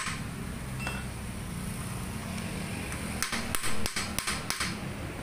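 Crankshaft pulley bolt being worked loose with a hand wrench: a quick run of about five sharp metallic clicks a little past halfway, over steady workshop background noise.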